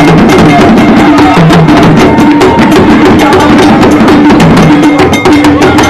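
Traditional Ewe drumming: a percussion ensemble playing a dense, fast rhythm of sharp struck strokes over repeated low pitched drum notes.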